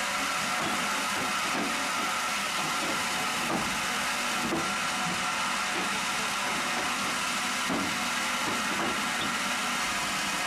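Sawmill machinery running: a steady hissing mechanical noise with a faint high hum and irregular low rumbling surges.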